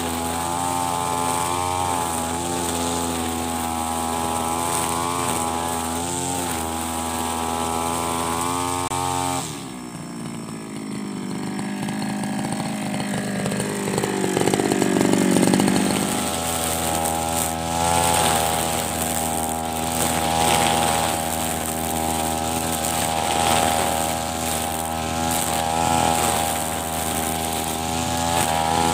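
Backpack brush cutter's small petrol engine running at high revs while cutting grass. About a third of the way in the revs drop off sharply and wind down, then climb back up, and it runs steadily again to the end.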